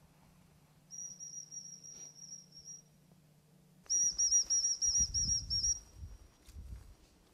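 A hunter's dog whistle: one long steady high note, then about a second later a louder warbling, trilled blast lasting about two seconds, with low rumbling beneath it.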